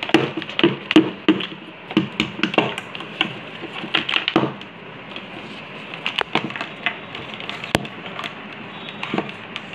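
Handling noise of a plastic wired headset and its cable: a run of clicks, taps and light knocks, dense at first and thinning out after about halfway.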